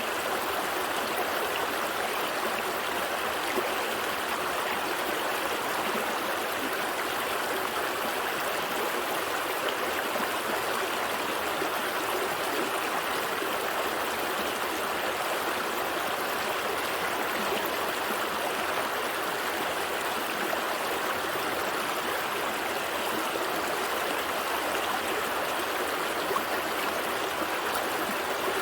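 Gentle stream flowing: a steady, even rush of running water.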